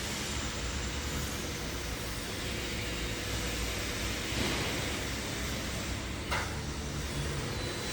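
Steady machinery noise of an automatic maxi-roll paper band saw cutting machine running, with a short sharp sound about six seconds in.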